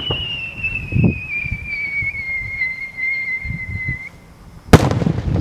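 Aerial firework shell climbing with a whistle tail: one long, clear whistle that slides slowly down in pitch for about four seconds and stops. Just over half a second later comes the loud bang of the shell bursting.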